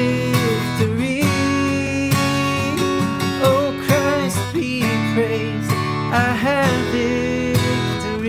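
Cutaway acoustic guitar strummed steadily in a worship song, with a wordless sung melody wavering and gliding in and out over the chords.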